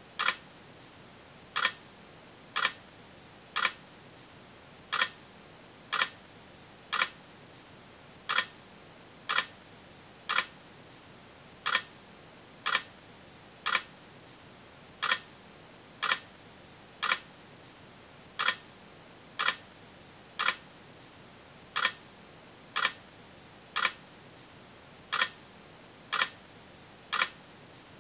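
A steady series of short, sharp clicks, about one a second, falling in a repeating pattern of three evenly spaced clicks followed by a slightly longer pause, over a faint steady hiss.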